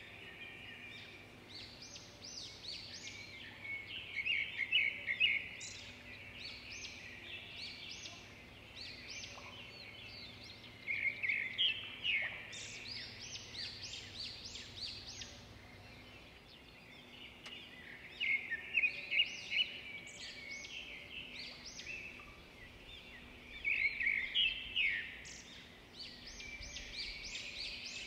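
Many small birds chirping and twittering together in a dense chorus, swelling into louder flurries about every six or seven seconds.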